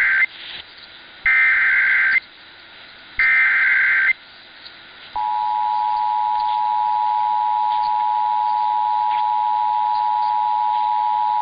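Emergency Alert System SAME header: the tail of one digital data burst, then two more bursts of shrill warbling data tones, each about a second long and a second apart, encoding a Required Monthly Test. About five seconds in, the steady two-tone EAS attention signal begins and holds. It is heard over AM radio.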